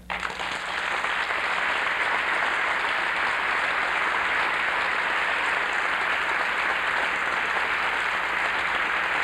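A large audience applauding, building up within the first second and then holding steady.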